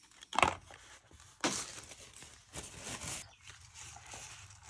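A sharp click about half a second in, then paper rustling and crinkling as a pocketknife is wrapped in it by hand.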